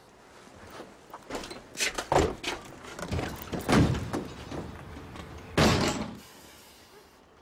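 A caravan door worked and slammed: a run of knocks and bangs, the loudest about two and four seconds in, then a heavier slam about six seconds in.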